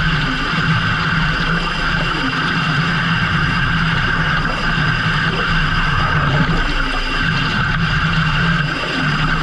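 Fishing boat's machinery running steadily, a constant loud drone.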